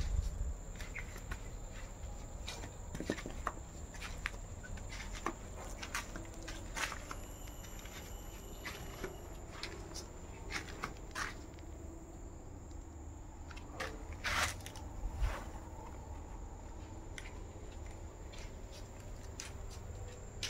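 Footsteps on dry ground and fallen leaves, heard as irregular soft crunches and clicks, over a faint steady high-pitched tone and low rumble.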